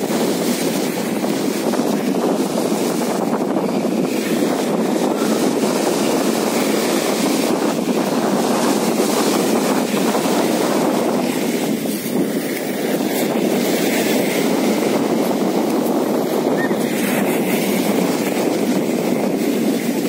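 Rough sea surf breaking and washing up a fine-pebble beach: a steady rushing wash of waves, with wind on the microphone.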